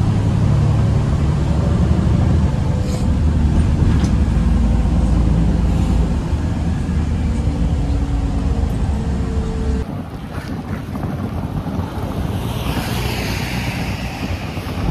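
Steady low rumble of a moving metro carriage heard from inside. It cuts off abruptly about ten seconds in, giving way to wind buffeting the microphone outdoors, with a hiss of wind rising near the end.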